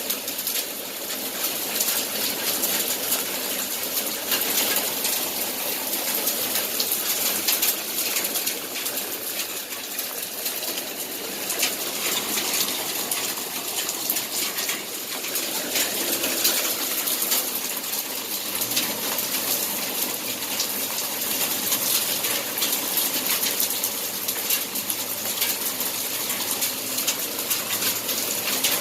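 Small hailstones falling with rain: a dense, steady stream of sharp ticks over the hiss of rainfall.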